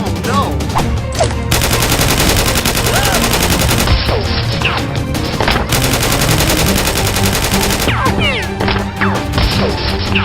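Rapid bursts of automatic gunfire, shots following each other in quick succession, over action background music.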